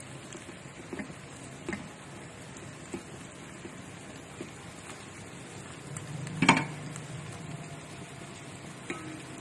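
Spoon spreading boiled rice in a steel pot: soft scrapes and light ticks, with one sharper clink of the spoon against the pot about six and a half seconds in. A faint low hum comes in around the same time.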